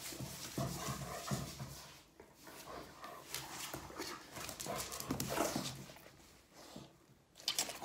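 Rottweiler panting close up in irregular bursts, with a few short whimpers.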